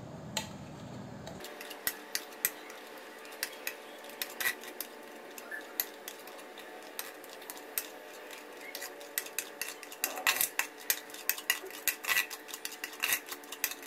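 Metal utensils clinking and scraping against a perforated steel ladle (jhara) as thick, hot cornflour batter is pressed through it into ice water to form falooda strands. The clinks are scattered at first, then come thick and fast from about ten seconds in.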